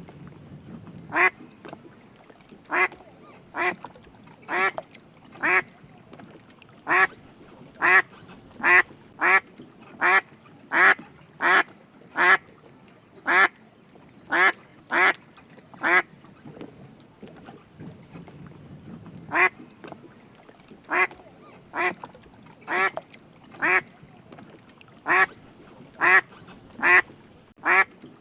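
A duck quacking: short, sharp quacks repeated about once a second, with a pause of about three seconds a little past the middle.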